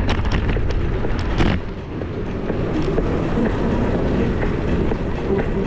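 Steady low rumble of wind and road noise on a riding camera's microphone, with a run of sharp rattling clicks in the first second and a half.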